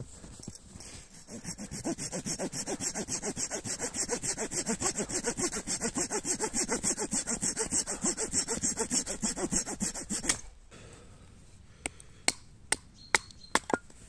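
Hand saw cutting through wood with quick, even strokes, several a second, for about ten seconds, then stopping abruptly; a few sharp knocks or snaps follow near the end.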